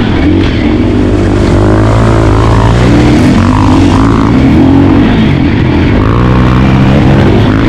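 An engine running loudly and continuously, its pitch wavering up and down as the revs change.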